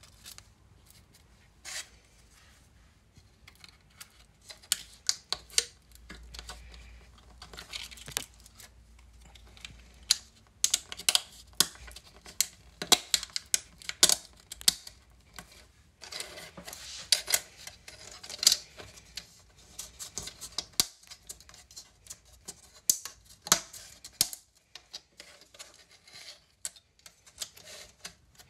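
Hard 3D-printed plastic parts clicking, snapping and knocking together as snap-in pieces are pressed into a frame, with plastic sliding and tapping on a wooden tabletop. The clicks come irregularly, in quicker runs in the middle.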